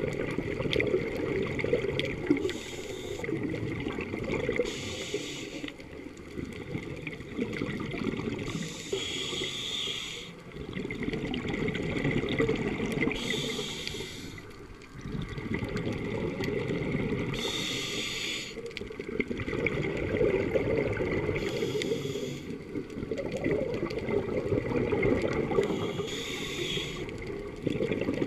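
Scuba diver breathing through a regulator underwater: a short hiss on each inhale, about every four seconds, alternating with a low burble of exhaled bubbles.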